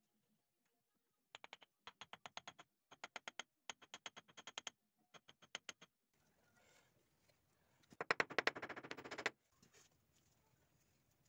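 Bricks being set and pressed into wet clay mortar by gloved hands: short bursts of quick clicking taps, then about a second of denser, louder scraping and rattling near the end.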